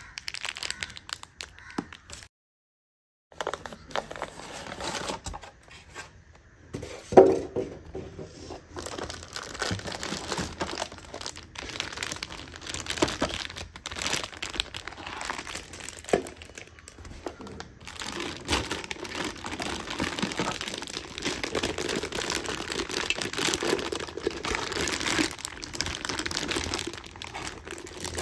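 Clear plastic wrapping crinkling and rustling as a plastic-bagged stainless steel mixer-grinder jar and its polystyrene packing are handled in a cardboard box, with one sharp knock partway through.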